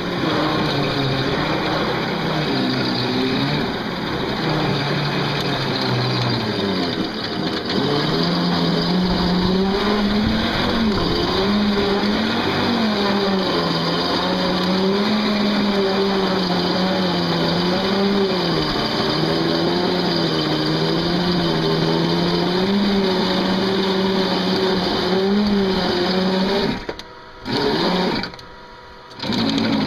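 Electric bulldozer's motor running under load as it pushes a pile of dirt, a whining hum whose pitch wavers up and down with the strain. It cuts out twice briefly near the end.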